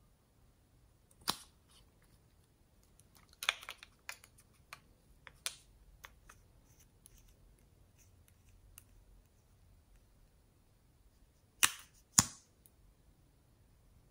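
Scattered sharp plastic clicks and taps as lip gloss tubes and their caps are handled, with a louder pair of clicks about half a second apart near the end.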